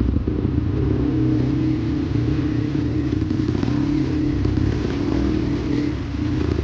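Dirt bike engine running at a fairly steady pace under way, with a low rumble and a held engine note; it eases off slightly about six seconds in.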